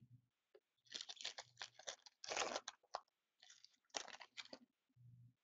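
Crinkling and tearing of a foil trading-card pack wrapper as it is handled and opened, in two clusters of crackly bursts.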